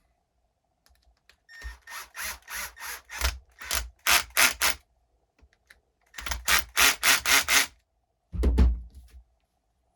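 Milwaukee cordless drill driving screws into plastic, in two runs of rapid, even clicking as the clutch, set to 3, slips once each screw is seated. A single heavy thud follows near the end.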